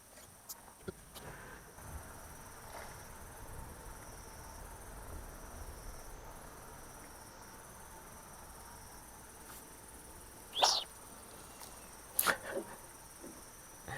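Crickets chirring steadily at night, a thin high-pitched drone, with two short, sharp, louder sounds near the end, about two seconds apart.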